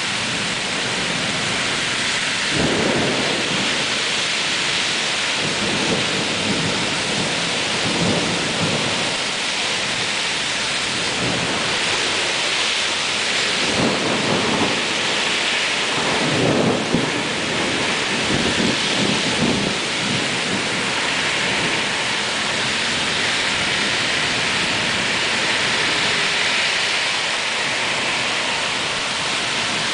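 Heavy rain pouring steadily in a thunderstorm. Several rumbles of thunder swell and fade in the first two-thirds, over the hiss of car tyres on the wet street.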